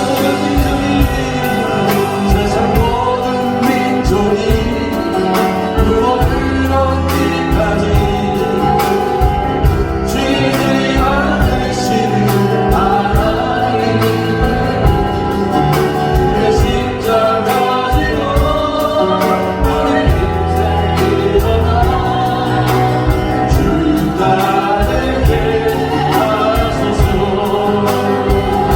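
Contemporary Christian worship song: singing over a band accompaniment with a steady beat.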